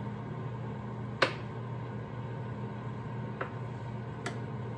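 A knife clicking against the cutting board three times as peeled hard-boiled eggs are sliced in half, the first click the loudest, over the steady low hum of a running air fryer.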